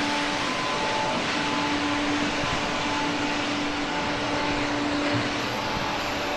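Farm machinery running steadily: an even mechanical drone with a constant hum tone.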